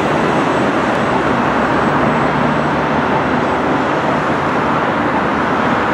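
Steady rolling noise of a double-stack container freight train's last cars running away down the line, mixed with road traffic. A low hum in the train noise stops about halfway through.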